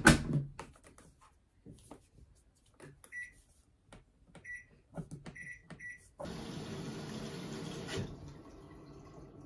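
Panasonic drum washing machine's control panel beeping as it is set: several short high beeps with small clicks between them. About two seconds of steady rushing noise follows and cuts off suddenly.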